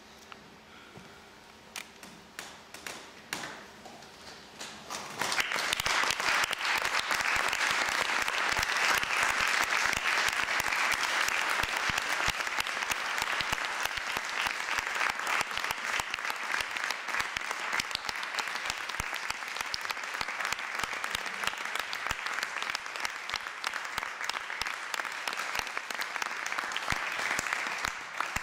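Audience applause: a few scattered claps at first, swelling into full, steady applause about five seconds in, then dying away at the very end.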